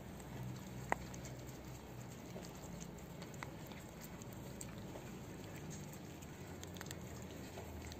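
A cat eating food off concrete close by: faint scattered chewing and licking clicks, with one sharper click about a second in.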